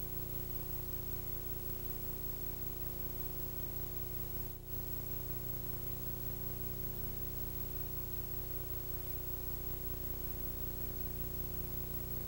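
Steady low electrical hum under an even hiss, the background noise of a multi-generation VHS copy, with a brief dropout about four and a half seconds in.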